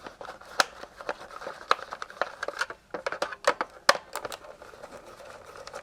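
Irregular clicks and taps of a small screwdriver turning little screws out of a plastic code-reader case.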